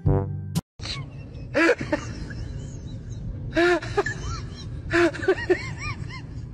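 Bursts of short, high-pitched whimpering cries, each rising and falling in pitch, over the steady low drone of a moving bus. A snatch of music at the very start cuts off abruptly.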